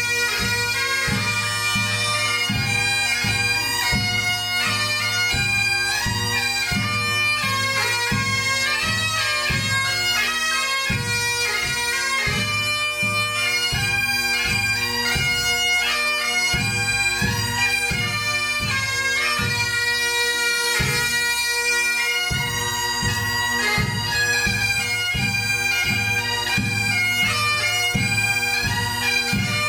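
Pipe band playing: several Highland bagpipes sound a tune over their steady drones, with a bass drum beating time.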